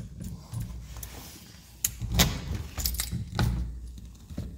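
Keys jangling and clinking, with several sharp clicks and knocks between about two and three and a half seconds in, at a locked door.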